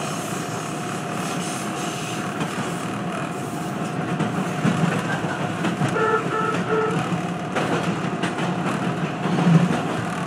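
Toronto subway train running on open surface track, heard from inside the front car: a steady rumble of wheels on rail under a steady whine, with a few rail-joint clicks. Three short beeps sound about six seconds in, and there is a louder thump near the end.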